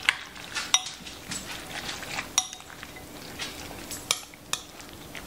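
A fork stirring a thick creamy dip of mayonnaise, sour cream, corn and shredded cheese in a glass mixing bowl: a soft stirring noise with a few sharp, irregular clinks of the fork against the glass.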